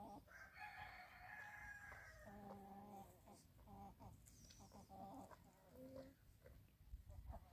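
A rooster crows once, faintly, in a call about two seconds long near the start, followed by several shorter, softer calls.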